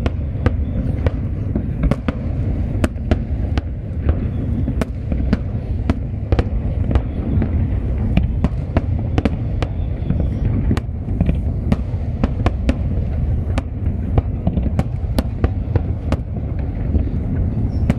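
Aerial fireworks display going off continuously: a dense, steady low booming of shell bursts with many sharp cracks scattered irregularly through it, several a second.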